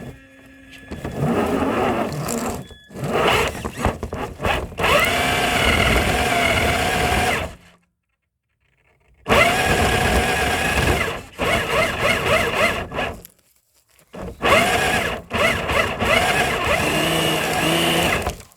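Electric motor and geartrain of a six-wheel-drive Traxxas RC hauler whining in several bursts of throttle, the pitch rising and falling, with short pauses between. The truck is stuck on a dirt hill and spinning its wheels without climbing.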